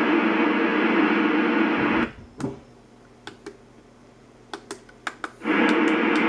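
First Alert SFA1150 weather radio hissing static from its speaker while tuned to a weather band channel. The hiss cuts off about two seconds in as the radio is switched to AUX input, a few button clicks follow, and the static comes back about five and a half seconds in when the weather band is selected again.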